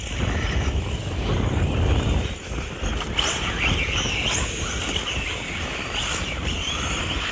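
Radio-controlled 1/8-scale off-road racing buggies running on the track, their small high-pitched engines revving up and down, loudest from about three seconds in. A low rumble fills the first two seconds or so.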